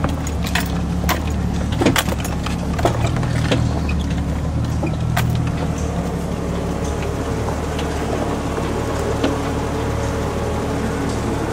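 Jeep engine running steadily at crawling speed, heard from inside the vehicle. Sharp knocks and rattles come in the first few seconds as it creeps over rough trail, then the engine's drone goes on alone.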